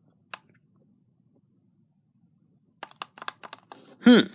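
Cluster of sharp plastic clicks from pressing the buttons of a Tecsun PL-606 radio, which stays silent because one AA battery is in backwards. A short falling vocal "hm" comes near the end.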